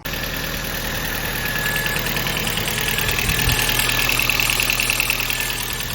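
Audi A4 B5 1.8-litre four-cylinder engine idling with a fast, light, even ticking. The owner puts this noise down to the cam chain tensioner not being pushed up by oil pressure because the oil pickup is clogged.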